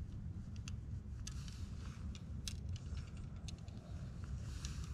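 Scattered raindrops ticking irregularly on dead leaves and nearby surfaces, over a low steady rumble.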